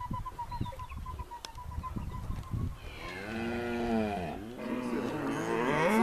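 Cattle mooing: two long moos about halfway through, the second louder and swelling near the end.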